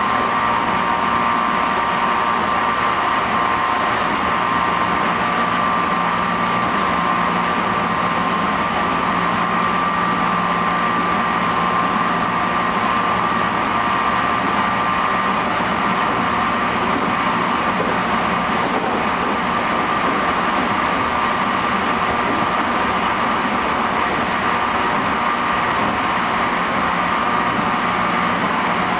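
Running noise inside the motor car of a JR Central 211 series electric train (MoHa 210-5017) at steady speed. A traction motor and gear whine holds one pitch over the rumble of wheels on rail. This car is noted for an abnormal, unusually loud motor noise.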